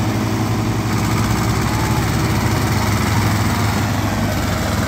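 Diesel tractor engines, a Mahindra and an Escort hitched in tandem, running hard together while hauling a heavily loaded trolley: a steady, loud, low engine drone with no change in pitch.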